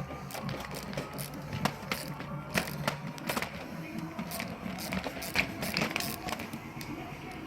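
Ratchet wrench clicking in short irregular runs as a nut is loosened off an Audi S4 shift linkage, over background music.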